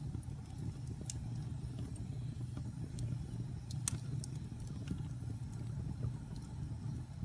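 Wood fire burning in a fireplace: a steady low rumble of flames with scattered sharp crackles and pops, the loudest pop about four seconds in.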